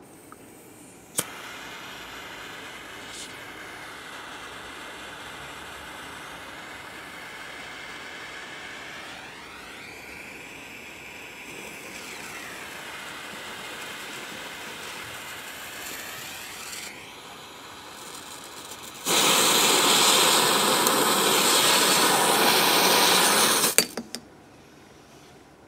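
A metal jet lighter clicks alight about a second in, and its jet flame hisses steadily for some fifteen seconds while it lights a firecracker fuse that spits sparks. Near the end comes a much louder hissing stretch of about five seconds, ending in a couple of sharp cracks.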